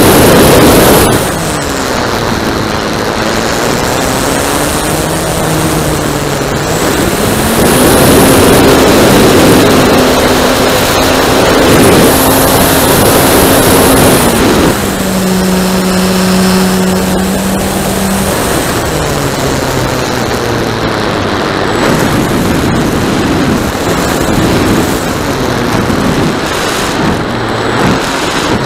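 A radio-controlled Piper Cub model's motor and propeller, heard from a camera on board, running with its pitch rising and falling as the throttle changes, under heavy wind noise on the microphone. The pitch drops low near the end as the plane descends over the field.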